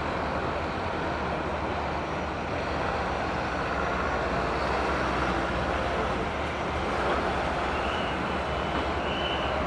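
Steady mechanical noise of ground-handling vehicles and equipment on an airport apron, with a low hum throughout. Short, high beeps sound twice near the end.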